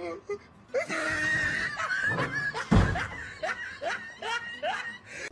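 A wooden wardrobe door gives a single loud bang about halfway through as it breaks loose and swings open. A person shrieks just before it and laughs in short bursts after it.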